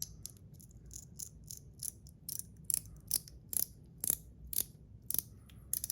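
Stainless steel Metal Toys Top C fidget clicking over and over in the hand, its spring-and-ball mechanism snapping about two to three times a second, the clicks growing sharper toward the end.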